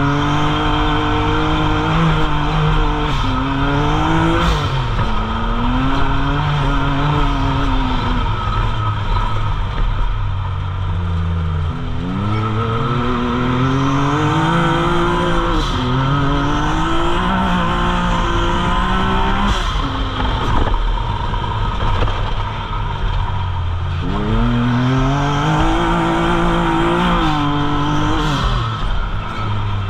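Can-Am side-by-side's engine heard from the cockpit while lapping a dirt short-course track: the engine note climbs under throttle, then drops back and runs low, three times over. A few sharp knocks come through along the way.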